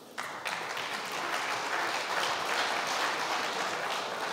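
Audience applauding, starting abruptly and thinning out near the end.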